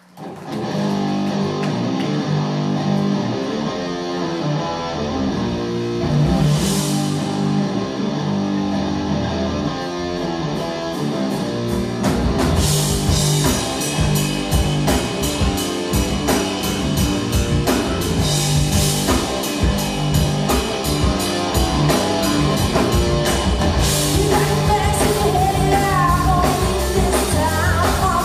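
Live rock power trio playing: distorted electric guitar, bass guitar and drum kit, starting with a guitar-led intro. A cymbal swells about a quarter of the way in, the full drum beat with steady cymbals kicks in near the middle, and a woman's lead vocal begins near the end.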